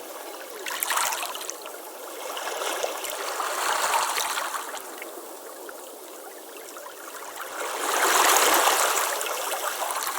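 Waves breaking and washing over a stone beach, the water surging up and drawing back through the pebbles with a fine crackling rattle. The surges come and go about every few seconds, the loudest near the end.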